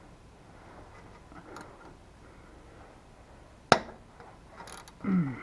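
A socket wrench straining on a tight nut on a starter: a few faint ticks, then one sharp metallic click about three and a half seconds in.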